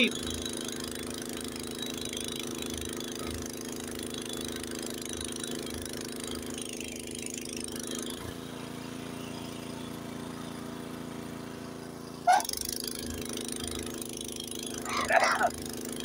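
Honda HS80 tracked snowblower's four-stroke single-cylinder engine running steadily under load while the auger chews through deep snow and the chute throws it. Its note shifts about halfway through and comes back with a short sharp sound a few seconds later.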